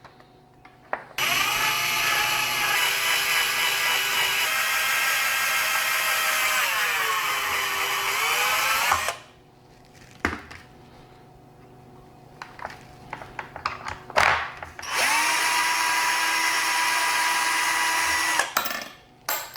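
Electric drill with a 4 mm bit boring a hole in the plastic of a car's hand-rest console. A first run of about eight seconds sags in pitch under load near its end. A few clicks and knocks follow, then a second run of about three seconds at a steady pitch.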